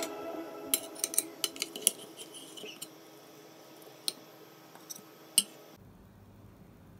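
A metal spoon clinking against a stainless steel pan: about a dozen light, scattered clinks, the sharpest one about five seconds in. Soft background music fades out under the first seconds.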